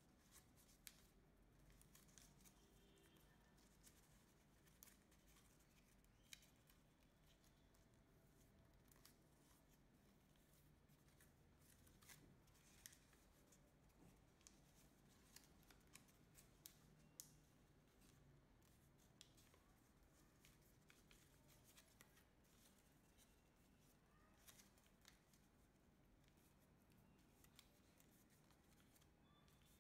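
Faint crinkling and rustling of origami paper being folded and pressed by hand, with irregular small crackles.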